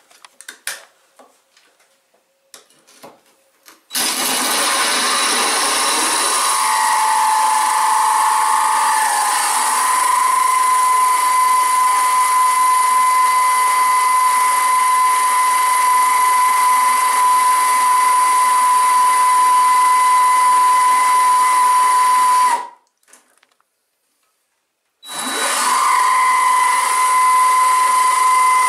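Cordless DeWalt drill spinning a QEP Brutus water-cooled porcelain tile bit through porcelain tile, with a steady high-pitched whine over the grinding. A few light clicks come before the drill starts about four seconds in. It runs for about 18 seconds, stops for about two seconds, then starts again.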